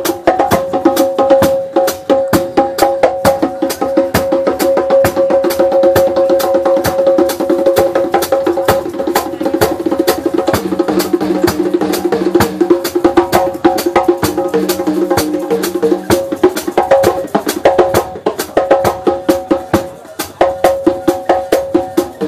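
Drum kit played in a fast, busy pattern: dense, rapid stick strokes on drums and cymbals, with steady pitched tones ringing underneath.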